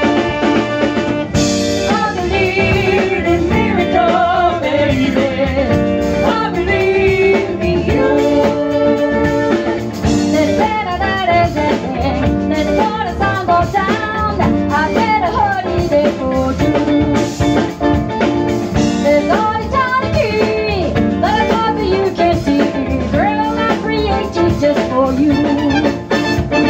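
Live band with a horn section of two saxophones and a trumpet, backed by keyboard and guitars, playing an upbeat song while a woman sings lead.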